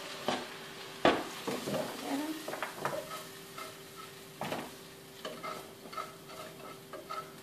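A spoon knocking and scraping against a cooking pot as freshly sautéed potatoes, onion and pepper are tipped out into a roasting tray, with a light sizzle from the hot vegetables. The loudest knock comes about a second in, followed by lighter taps and scrapes.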